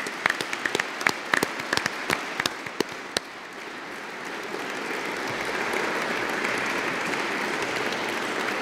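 Audience applause: a few separate claps at first, then from about four seconds in it fills out into steady, louder applause from many hands.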